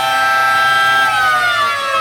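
Air raid siren sounding several tones at once. Its pitch holds steady, then about a second in it starts to wind down and fall.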